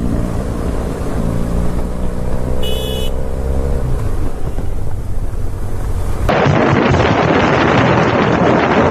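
Motorcycle engine running, with a brief high tone about two and a half seconds in. About six seconds in the sound cuts abruptly to loud wind rushing over the microphone.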